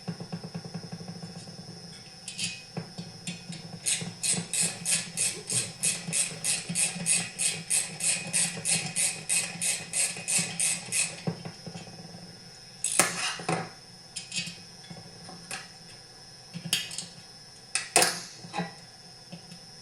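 A ratchet wrench clicking in a quick, even run, about three or four clicks a second, as small bolts are run in, then a few sharp separate knocks of metal tools or parts.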